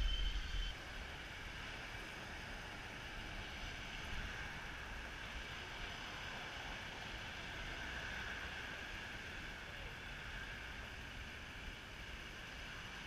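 Steady background noise of city road traffic, an even hum with no distinct events. A louder low rumble cuts off suddenly within the first second.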